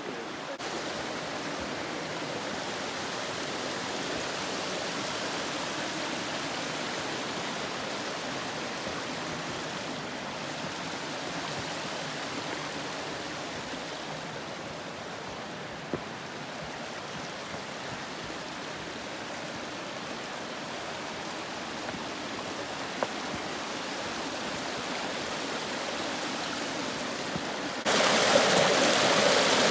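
Mountain creek rushing steadily over rocks, an even watery hiss; it jumps suddenly louder near the end.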